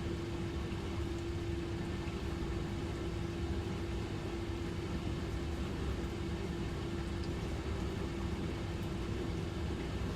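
Dishwasher running mid-cycle: a steady motor hum with one constant tone over an even hiss.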